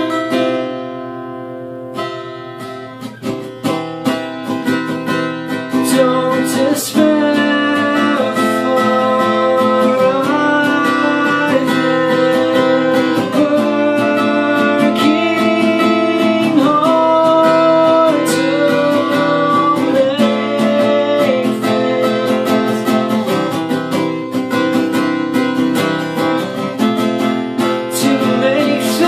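Steel-string acoustic guitar strummed and picked in an indie rock song, with a man singing over it. A chord rings out and fades at first, then the strumming picks up again about two seconds in.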